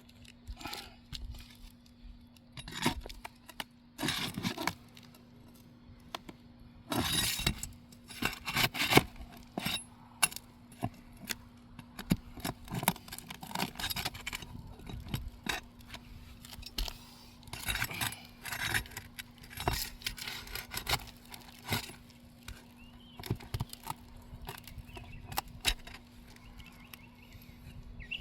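A metal pry bar scraping and clinking against asphalt roof shingles and nails as the nails are pried out, in irregular clicks and short scrapes. A faint steady hum runs underneath.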